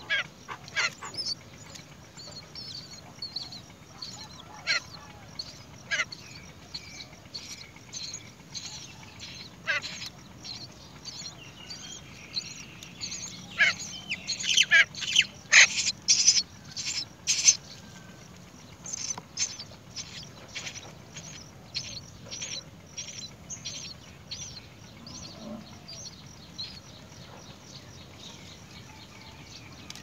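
Great myna nestlings begging with many short, shrill squeaks, rising to a loud, rapid burst about halfway through as the adult feeds them.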